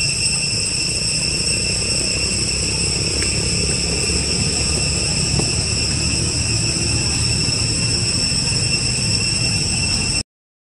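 A steady, high-pitched insect chorus of several unbroken tones drones throughout, over a low rumble. The sound cuts out for a moment near the end.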